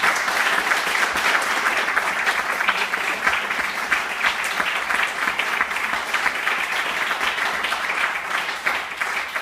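Audience applauding steadily after an acoustic folk song ends, thinning out near the end.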